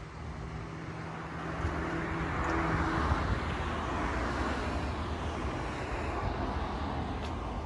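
A vehicle passing outdoors: a rush of engine and road noise that swells about two to three seconds in and then fades, with a steady low hum in the first few seconds.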